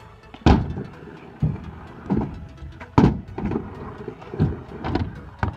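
Stunt scooters on a skatepark's ramps and tarmac: a run of sharp clacks and thuds from wheels and decks striking the ramp surfaces and ground, irregular and about half a second to a second apart, the loudest about half a second in and about three seconds in.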